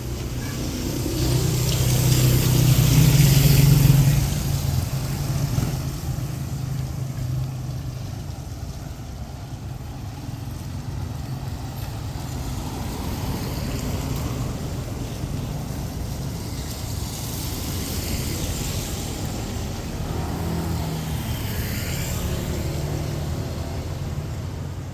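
Motor vehicles passing on a street, their engines swelling and fading. The loudest passes close about three seconds in, and another goes by near the end.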